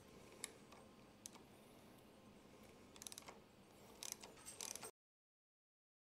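Faint metal clicks and ticks of a 5 mm Allen key working the clamp bolt of a motorcycle handlebar's lever-and-mirror bracket. A few single clicks come first, then quick runs of clicks about three and four seconds in, and the sound cuts to dead silence about five seconds in.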